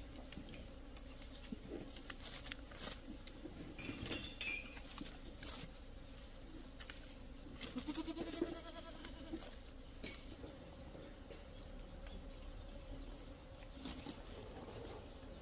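Leaves and branches rustling, with small clicks and snaps, as oleaster fruit is picked by hand from the bush. A short pitched call rises above them about eight seconds in.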